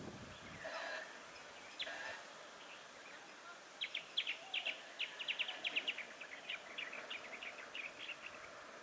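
A bird chattering: a fast, irregular run of short, sharp high calls that starts about four seconds in and goes on for roughly four seconds.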